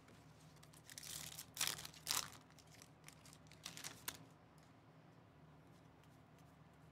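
A baseball card pack's wrapper being torn open and the cards handled: faint crinkling and tearing in a few short bursts over the first four seconds, then near quiet.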